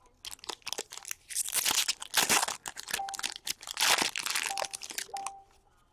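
Foil card-pack wrappers crinkling and tearing as packs of hockey cards are opened and the cards handled, with many small clicks and two louder crinkling rushes, about a second and a half and four seconds in.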